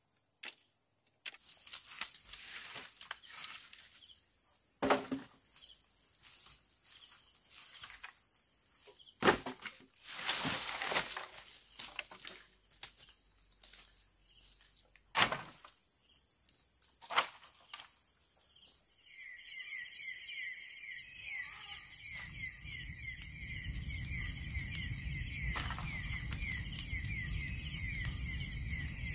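Insects chirping in a fast, even pulse, with scattered sharp knocks and rustles in the first part. About two-thirds in, a louder, different insect chorus with a quicker pulse takes over, over a steady low noise.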